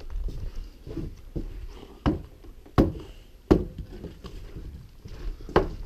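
Footsteps on snow-dusted wooden deck boards: a few sharp knocks, three in a row a little under a second apart, then another near the end, over a low wind rumble on the microphone.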